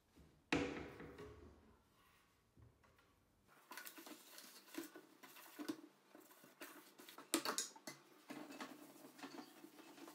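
Household items being handled and set down: a sharp knock about half a second in that rings briefly, then a run of small clicks and taps.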